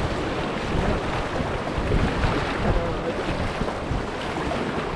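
Rushing, splashing whitewater of a river rapid around an inflatable raft, with wind buffeting the microphone.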